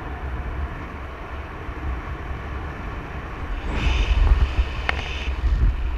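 Wind buffeting and rushing over the camera microphone of a paraglider in flight, a steady low rumble that grows louder with a hissing rush for a second or two past the middle, with one sharp click in it.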